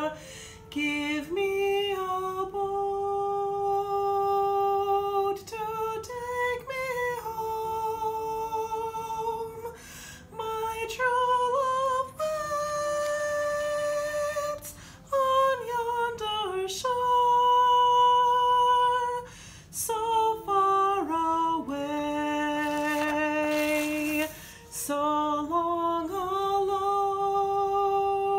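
A lone woman's voice humming a wordless, unaccompanied melody. She holds long notes joined by short slides, with brief breaks for breath.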